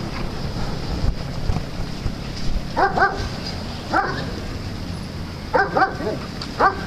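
Dogs at play barking: several short barks, the first about three seconds in, then again at about four, five and a half and near the end, over a steady low rumble.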